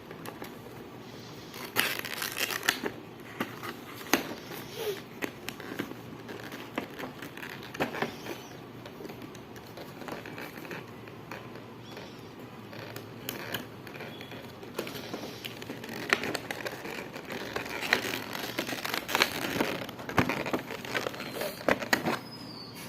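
Packaging being handled: plastic and cardboard crinkling and rustling with scattered sharp clicks, in bursts, busiest about two seconds in and again over the last several seconds.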